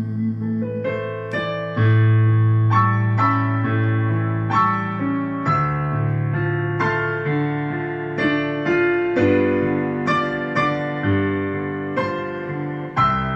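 Instrumental break in a backing track: a piano-like keyboard plays a slow run of struck notes over held low bass notes, with no singing.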